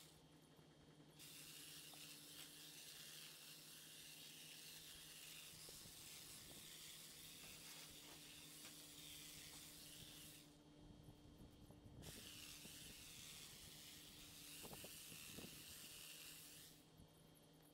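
Near silence: a faint steady hiss that drops out briefly a few times.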